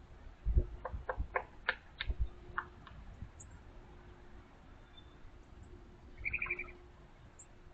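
A run of light, quick taps and knocks in the first few seconds, then one short buzzy chirp from a small bird about six seconds in.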